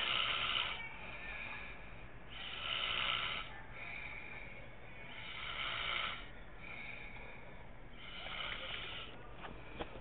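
A man snoring in his sleep: four loud snores, each about a second long and spaced roughly every two and a half to three seconds, with softer breaths between them.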